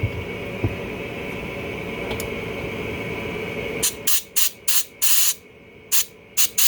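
A steady hum with a faint whine, then from about four seconds in a rapid series of short compressed-air blow-gun blasts, about seven, one a little longer, aimed into a small-engine carburetor body, apparently to try to blow out a stuck needle seat.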